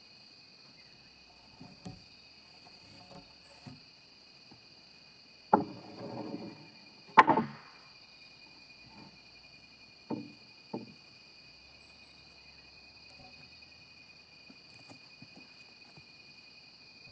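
A few wooden knocks and clatters, like timber pieces being handled or set down, the two loudest about five and a half and seven seconds in, with smaller ones before and after. A steady high insect buzz runs underneath.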